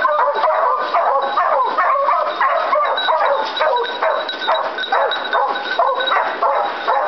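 Pack of beagle-type hunting hounds baying together, many voices overlapping in an unbroken chorus.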